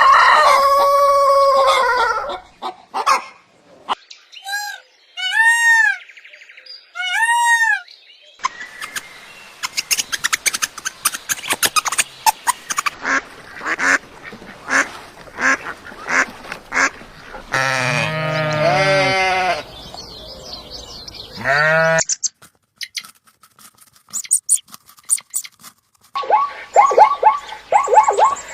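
A series of separate bird calls in a row. There is a pitched call at the start, then three arched honks, then a long stretch of rapid clicking chatter, then a run of loud calls, and fast repeated calls near the end.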